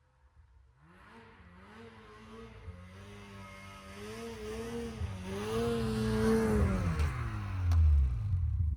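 A motor vehicle's engine running and drawing closer, getting steadily louder with its pitch wavering up and down, then dropping in pitch just before it cuts off.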